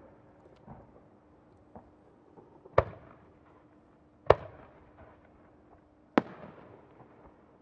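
Aerial firework shells bursting: three loud bangs about a second and a half to two seconds apart, each trailing off in an echo, with a few faint pops before them.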